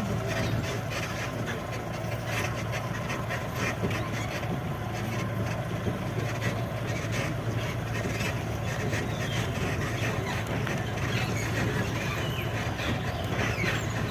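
Safari bus engine running steadily, with many short, scattered higher-pitched sounds over it that grow busier in the second half.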